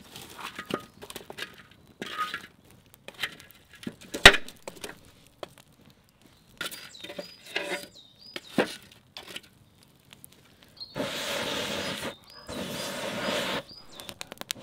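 Long-handled metal fire tongs clinking and knocking against burning logs and the iron fire bowl as a wood fire is split in two, with charcoal and embers rattling; one sharp knock about four seconds in is the loudest. Near the end come two longer spells of scraping as embers are raked across the bowl.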